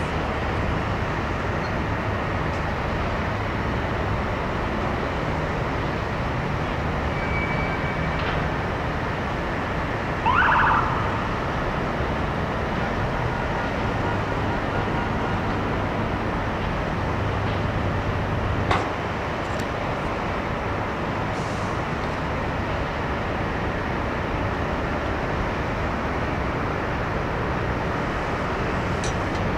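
Steady outdoor city noise over a recovery site, with one short rising siren chirp from an emergency vehicle about a third of the way in. A single sharp click follows near two-thirds through.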